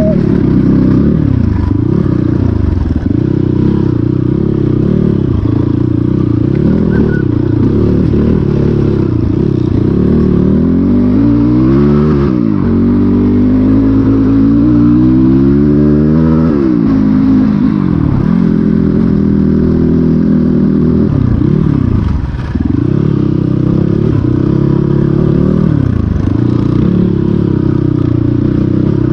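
Off-road motorcycle engine revving up and down as it rides, the pitch rising and falling over and over. There is a longer climb in revs in the middle, then a drop.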